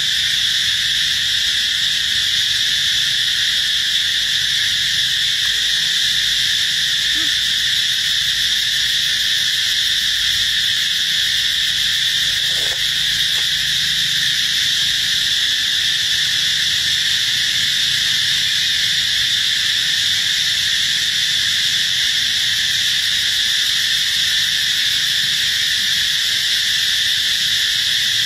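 A loud, steady chorus of insects: an unbroken high-pitched drone that neither rises nor falls.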